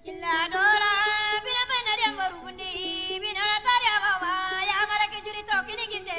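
A song: a singing voice holds long, wavering, ornamented notes that bend up and down, over a steady low instrumental note, in a Middle Eastern style.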